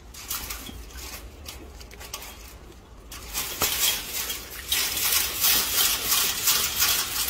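Scratchy rustling with many scattered clicks and no voices. It gets louder about halfway through.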